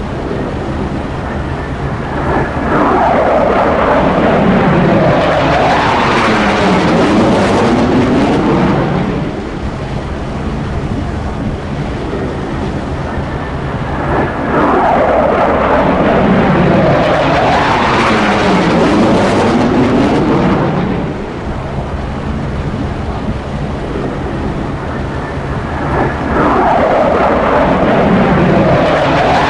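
F-35 jet engine noise swelling and fading three times, each swell lasting about seven seconds with a whooshing sweep that falls and rises again as the jet goes by, over a steady low rumble.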